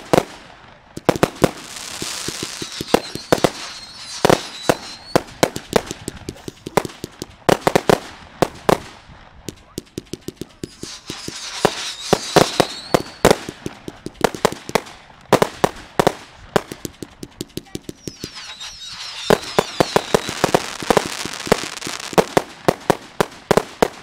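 Fireworks going off in quick succession: a dense string of sharp bangs from launches and bursts, with three spells of crackling hiss, soon after the start, around the middle and near the end.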